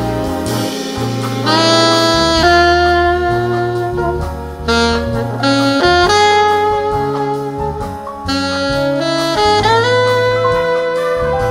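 Jazz big band playing live: saxophones and brass in held ensemble chords that change every second or two, over piano, bass and drums, in a 16-beat shuffle.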